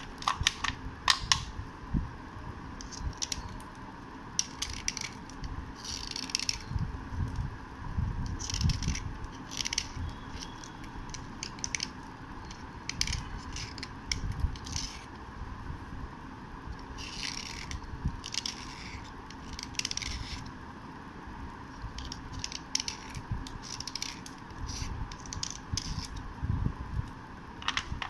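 Snap-off utility-knife blade scraping along slate pencils in short, irregular strokes, flaking off chalky crumbs, over a steady faint background hum.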